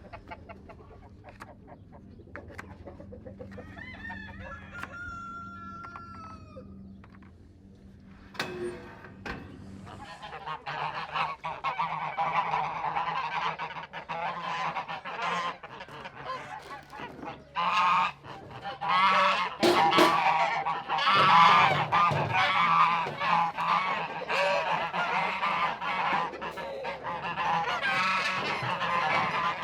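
A flock of farm ducks calling, quiet at first with one drawn-out call, then breaking into a loud, continuous chorus of overlapping quacks and honks from about ten seconds in.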